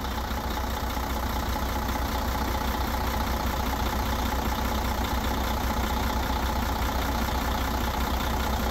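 Mercedes-Benz unit-pump diesel truck engine idling steadily: an even low rumble with a faint steady whine on top.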